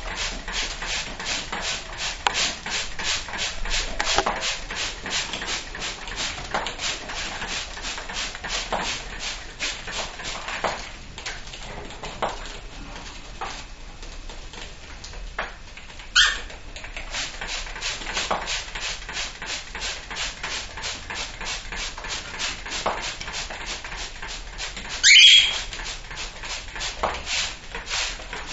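Cockatiels bathing under a water spray: a fast, even pattering of about four strokes a second, with two loud rising cockatiel calls, one about halfway through and a louder one near the end.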